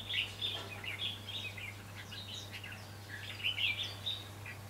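Red-whiskered bulbuls singing and calling, short bright chirping phrases in four or so quick bursts.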